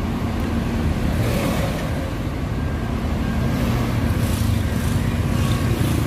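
Tour coach driving by up close: its diesel engine runs with a steady low drone under tyre and road noise.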